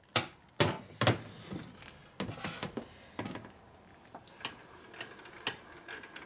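Metal knocks and clinks of tools and parts against an aluminium Harley-Davidson Sportster engine case being worked on by hand: several sharp knocks in the first three seconds, then lighter ticks about twice a second.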